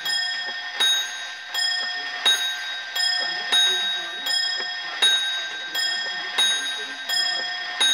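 Small bell of a Black Forest automaton shield clock, struck over and over, about every three-quarters of a second, as the carved monk figure rings it. Each stroke rings on into the next.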